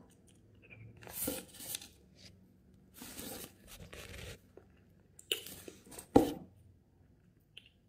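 Phone handling noise: several short bursts of rustling and rubbing close to the phone's microphone, with a sharp knock about six seconds in.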